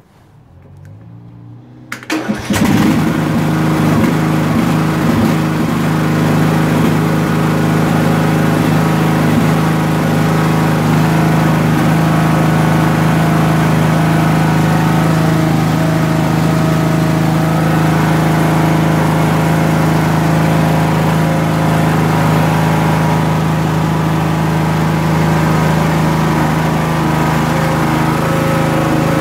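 Craftsman LT1000 lawn tractor engine cranked by its electric starter, spinning up for about two seconds before it catches, then running steadily and loud at an even pitch.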